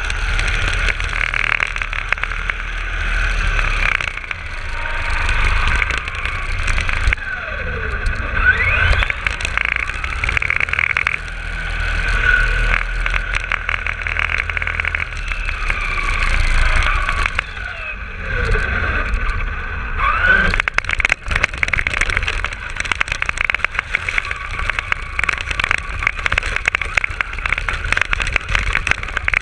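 Traxxas RC car's motor and drivetrain whining, rising and falling in pitch as the car speeds up and slows, over rumbling wind and road noise. About two-thirds of the way through, a dense rough crackling takes over as the car runs onto snow.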